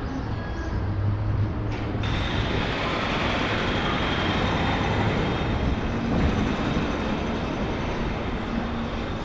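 Steady noise of a large vehicle going by on the street, swelling about two seconds in and holding there.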